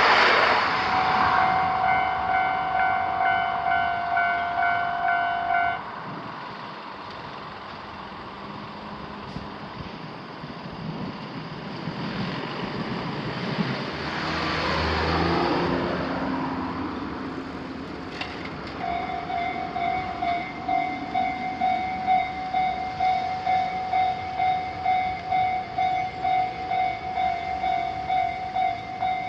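Japanese railroad crossing warning bell dinging in a steady repeating rhythm, about one and a half dings a second. The noise of a passing train fades in the first second and the bell stops about six seconds in. Midway a passing vehicle swells and fades, and the bell starts ringing again a few seconds later.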